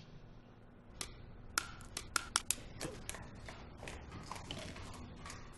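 Scattered sharp clicks and crackles of plastic drinking straws being handled and jabbed against apples by many people at once, starting about a second in and thinning out after the first few seconds.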